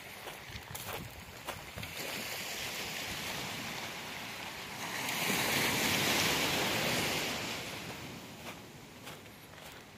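Small surf wave breaking and washing up the sand: a hiss that swells to its loudest about halfway through and dies away near the end.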